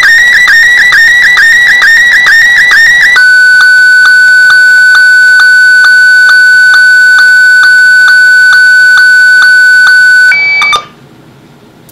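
Slow-scan television (SSTV) picture signal in Martin 1 mode from a handheld radio's speaker. It starts as a warbling whistle with a short chirp about twice a second. About three seconds in it settles to one steady tone, still broken by the same regular chirps. Near the end a brief higher tone sounds, then the transmission cuts off suddenly, leaving faint hiss.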